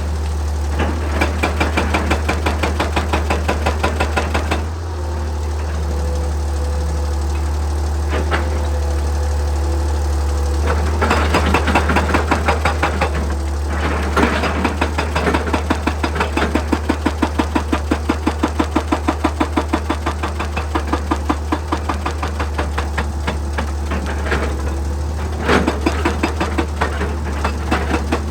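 Excavator-mounted hydraulic breaker hammering rock in rapid, evenly spaced blows, about four a second, in several long runs with short pauses. Under it the excavator's engine runs steadily.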